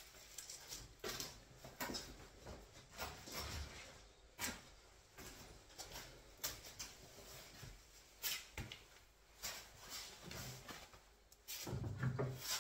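Scattered light knocks, clicks and rubbing of cabinet panels and quick-release bar clamps being handled, at irregular intervals.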